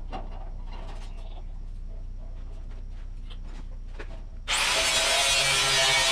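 A few light handling knocks and clicks, then a power tool starts about four and a half seconds in and runs at a steady speed, loud and hissy with a few steady tones.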